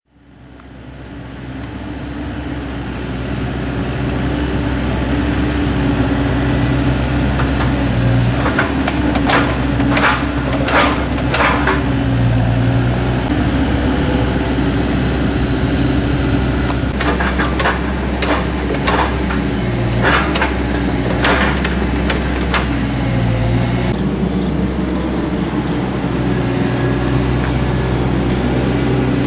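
Atlas 1505 M wheeled excavator's diesel engine running steadily, fading in over the first few seconds. Two bursts of clattering knocks, about a third of the way in and again past the middle, as the bucket works among loose paving bricks.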